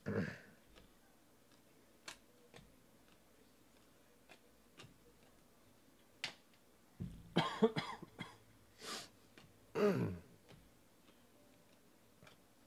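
A man coughing and clearing his throat: once at the start, a cluster of coughs about seven seconds in, and another about ten seconds in, each falling in pitch.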